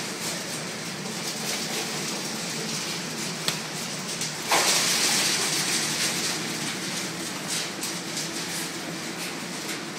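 Steady mechanical hum and hiss of a hog barn's interior, with a short click and then a louder rush of noise lasting about a second, a little under halfway through.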